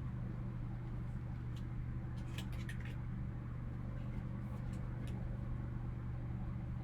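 Steady low hum with a few faint clicks and crinkles from trading cards being handled.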